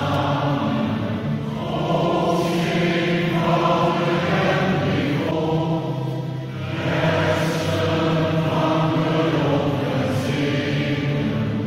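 Church choir singing a hymn in several voices, in long held chords, with the echo of a large church.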